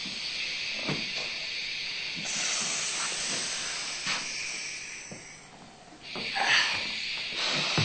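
A person hissing through the teeth to mimic steam: a long, steady hiss that fades about five seconds in and starts again about a second later.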